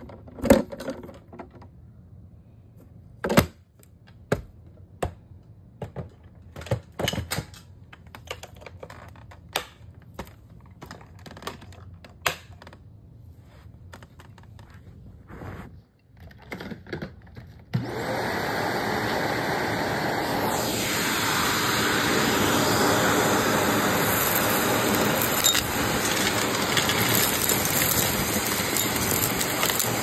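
Scattered clicks and knocks of handling, then a vacuum cleaner switched on abruptly about two thirds of the way in and running steadily at full suction, drawing confetti and grit up from the carpet.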